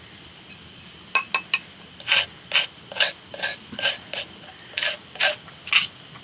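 Rhythmic rasping scrapes, about two a second, starting about a second in.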